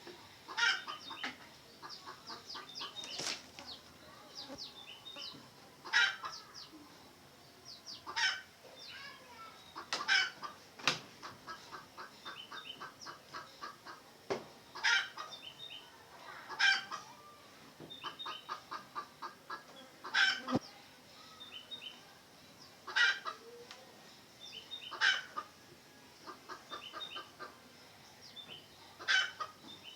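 Red junglefowl clucking in quick runs of short notes, with higher chirping calls in between. Sharp knocks about every two to three seconds are the loudest sounds.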